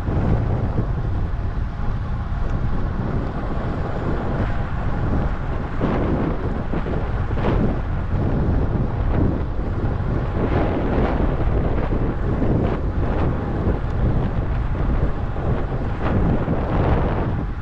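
Wind buffeting the microphone of a camera travelling at about 43 km/h: a dense, steady low rumble with irregular gusty swells every second or so.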